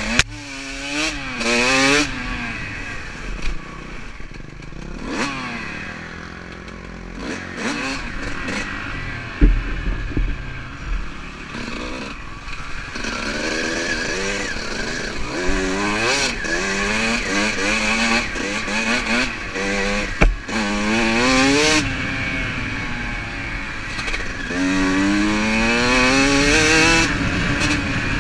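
Dirt bike engine revving up and easing off again and again as it is ridden, its pitch climbing through each acceleration, with splashing through water and two sharp knocks, about nine seconds and twenty seconds in.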